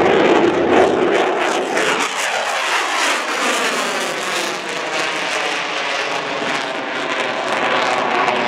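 Jet noise from a Lockheed Martin F-22 Raptor's two Pratt & Whitney F119 turbofans as the fighter climbs steeply after takeoff. It is a loud, steady rushing sound whose deep rumble thins out about two seconds in, with slow sweeping shifts in pitch as the jet moves away.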